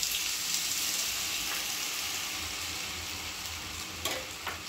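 Diced raw potatoes sizzling in hot oil in a kadhai just after being tipped in, a steady hiss that slowly eases. Two short clicks near the end.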